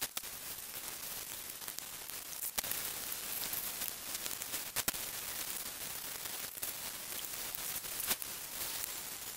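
Hand wet-sanding of a bare aluminium engine valve cover with 1200-grit waterproof sandpaper, sped up into a dense, continuous hiss and crackle. There are a few sharp clicks, about 2.5, 5 and 8 seconds in.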